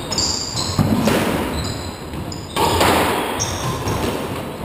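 Squash rally: the ball is struck by rackets and knocks off the court walls, giving a few sharp knocks in an echoing court, along with players' footsteps on the wooden floor.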